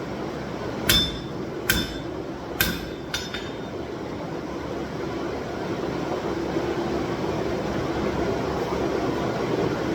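Four hammer blows on steel at the anvil in the first three seconds or so, each with a short metallic ring, forging a steel-cable knife's tang. After them a steady rushing noise grows slowly louder.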